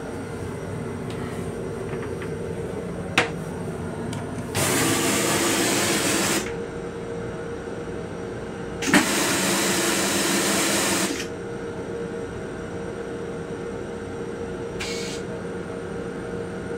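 Steady running hum of an M7 railcar heard from inside its small restroom. About three seconds in there is a single sharp clack as the toilet seat is lowered onto the bowl. Then come two loud hissing bursts of about two seconds each, a couple of seconds apart.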